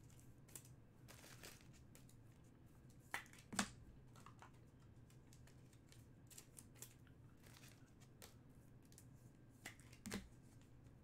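Faint handling sounds of trading cards and packaging on a table: light rustles and small clicks, with a few sharper taps about three seconds in, a moment later, and near the end.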